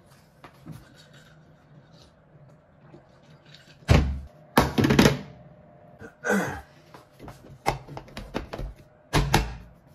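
Tableware being handled and set down on a kitchen counter: a series of thunks and knocks, loudest about four to five seconds in and again near the end.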